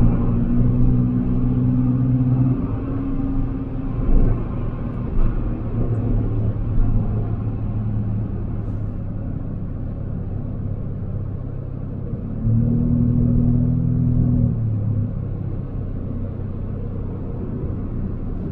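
Car engine and road noise heard from inside the cabin while driving: a steady low rumble, with a low engine drone holding one pitch at the start and again for a couple of seconds about twelve seconds in. A few brief knocks come between about four and seven seconds in.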